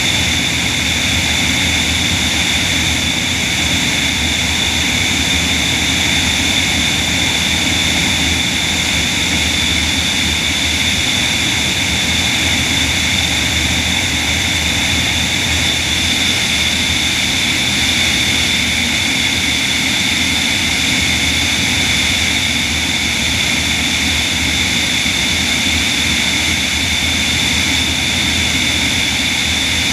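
In-flight sound of a de Havilland DHC-2 Beaver seaplane with a magniX magni500 electric motor, heard from a camera on the wing. Propeller and airflow make a steady rush with two constant high whining tones. There is no piston-engine clatter, since the plane flies on the electric motor.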